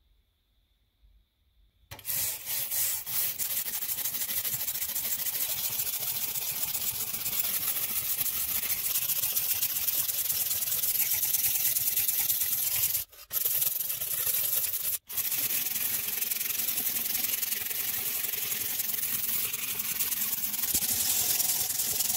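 Steel wire brush scrubbing rust off the steel blade of an old handsaw: steady scratchy scrubbing that starts about two seconds in, with two brief breaks midway.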